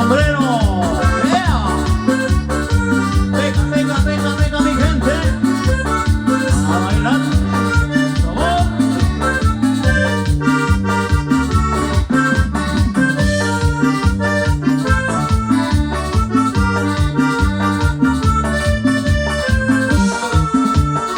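Cumbia played on an electronic keyboard: an accordion-like melody over a steady, repeating bass line and beat.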